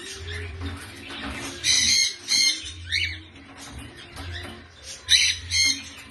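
Cockatiels giving loud, harsh squawks: a cluster of calls a couple of seconds in, one with a rising pitch, and two more shortly before the end. Background music plays underneath.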